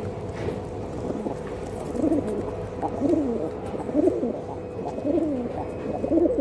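Domestic pigeons cooing: a low, arched coo repeated about once a second, starting about two seconds in.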